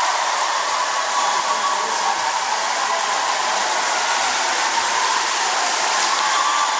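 A steady, loud rushing noise with no beat or bass, like a rain or wind sound effect; music comes in right after it.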